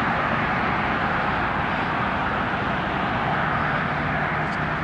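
Steady vehicle noise: a constant rushing hiss over a low rumble.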